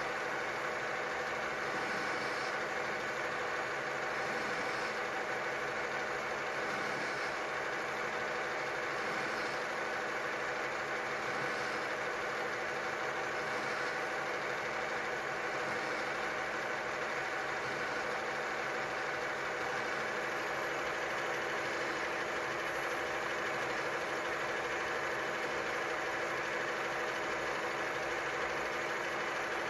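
Inverter-driven spindle and gearing of a general-purpose lathe converted to CNC running steadily, a constant hum of several fixed tones, while an indexable insert tool makes an automatic turning pass along a tapered profile on the spinning bar.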